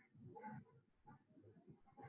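Near silence: room tone with a faint, brief murmur about half a second in.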